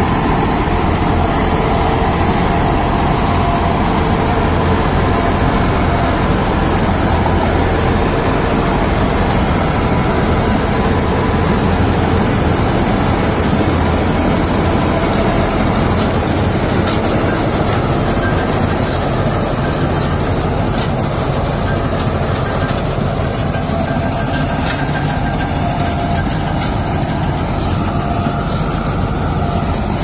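John Deere 5310 tractor's three-cylinder diesel engine running steadily under load while its mounted harvester cuts thick corn stalks, with rattling and clicking from the header and reel. It grows a little fainter over the last third.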